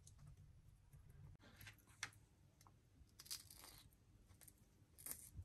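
Near silence, with a few faint crackles and clicks from hands wrapping raw onion petals around marinated chicken pieces: one about two seconds in, a short cluster a little past the middle, and one near the end.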